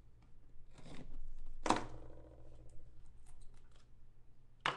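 A sealed trading-card box being cut and pried open. A scraping swish comes first, then a sharp knock with a brief ringing tail a couple of seconds in, light clicks, and a sharp click near the end as the lid comes free.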